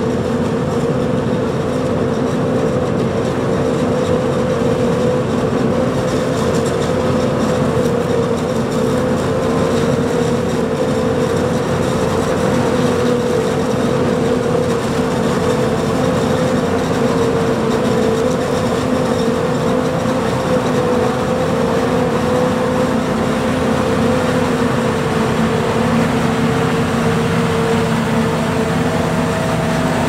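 Self-propelled forage harvesters chopping maize, with tractors running alongside: a loud, constant machine drone holding a steady pitch. A few extra tones join in near the end.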